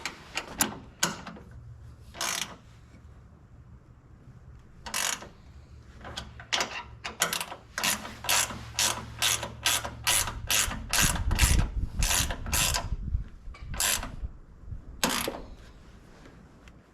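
Socket ratchet wrench clicking as a bracket bolt is run in and tightened: a few scattered clicks, then a quick, steady run of about three clicks a second for several seconds before it slows and stops.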